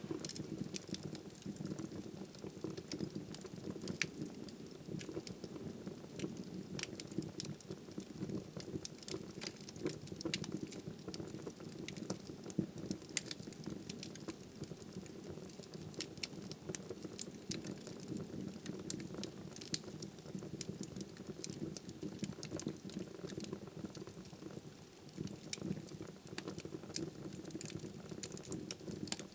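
Wood fire burning in a fireplace: a steady low flame rumble with frequent, irregular crackles and pops from the burning logs.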